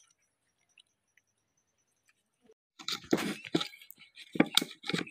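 A thin tin shim being scraped and pressed with a metal pick into the gap between a ball bearing and a worn clutch-pulley collar, packing it so the loose bearing sits tight. It comes as a quick run of irregular metallic scraping clicks, starting about three seconds in after near silence.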